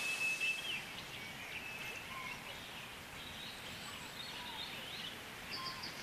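Tropical rainforest ambience: scattered bird chirps and short whistled calls over a soft hiss. The hiss thins out about a second in.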